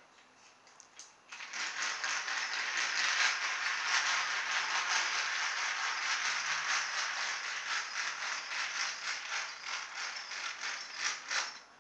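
Battery-powered toy train locomotive running round its track: a rapid, rattling whir of its small electric motor and plastic gears that starts about a second in and dies away near the end as the train runs out of steam. The locomotive is underpowered and struggles on the curves.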